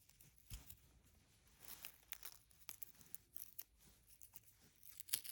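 Faint tearing and crinkling of a packaging pull tab being peeled open, in a series of short crackles with a louder crackle near the end.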